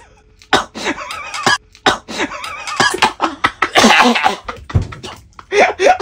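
Short bursts of coughing and laughter, with wordless voice sounds in between, as a reaction to tasting a salted egg filled with very spicy oil.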